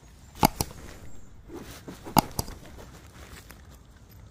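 Two double mouse clicks, a sound effect for an on-screen subscribe button and notification bell, about two seconds apart; faint rustling between them.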